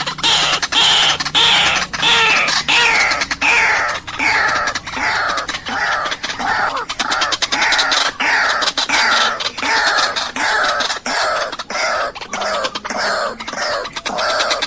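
White-breasted waterhen (ruak-ruak) calling: a long run of harsh, repeated notes, each falling in pitch, about two a second. It is the kind of call played to lure waterhens into traps.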